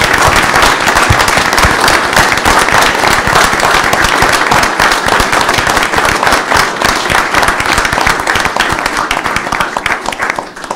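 Audience applause: many people clapping at once, loud and dense, dying away near the end.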